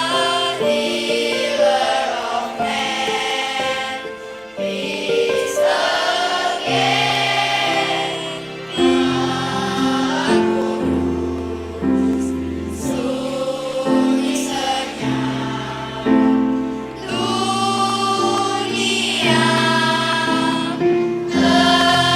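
Primary-school children's choir singing a sacred song in phrases a few seconds long, over low sustained accompaniment notes.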